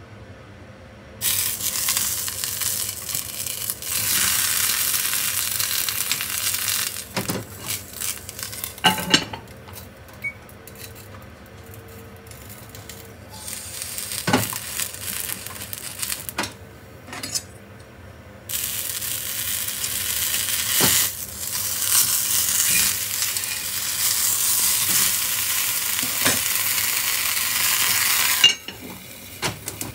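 Whole eggplants sizzling in a dry, very hot cast-iron mini Dutch oven, their own moisture spitting on the bare iron. The sizzle comes in two long stretches that cut off suddenly, with a few sharp clanks of metal between and during them.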